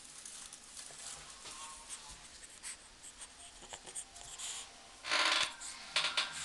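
Light scratching and scuffing as a Shih Tzu puppy moves about on a fluffy rug and noses a hand, with louder rustling bursts about five and six seconds in.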